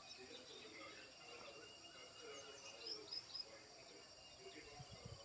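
Faint outdoor ambience of insects trilling steadily at a high pitch, with three quick high chirps about three seconds in and a few low thumps near the end.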